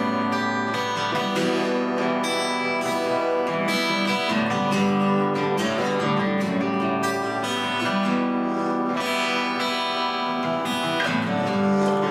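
Acoustic guitar strummed steadily in an instrumental passage between sung lines of a country song.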